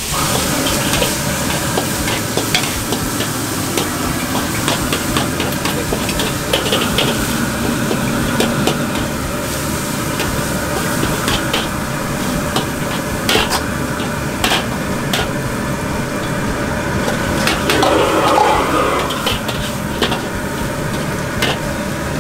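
Chicken pieces sizzling in a carbon-steel wok over a wok burner's steady rush, while a metal ladle stirs them, clinking and scraping against the wok. The sizzling gets louder for a moment about eighteen seconds in.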